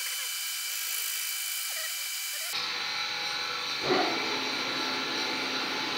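Boring machine's spindle running with its cutter taking a pass across the main bearing cap seats of a cylinder block: a steady high whine with several steady tones. The sound changes abruptly about two and a half seconds in, with a brief louder burst of noise about four seconds in.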